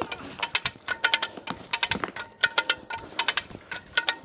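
Ratchet strap being cranked under heavy load: several quick runs of metallic clicks as the pawl catches, tightening the strap that pulls the tree over.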